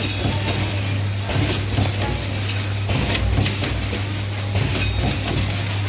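Namkeen packing machine with a cup filler running: a steady low hum with repeated clattering and rattling from the filling mechanism and falling snack.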